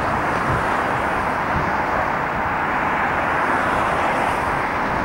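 Steady noise of road traffic on an elevated road bridge, with no single vehicle standing out.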